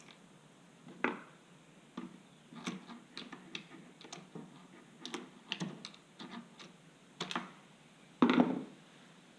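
Chainsaw bar, chain and cover being handled and fitted onto a Stihl MS180 C-BE: a scattered series of light clicks, taps and small clatters. The loudest is a short clatter near the end.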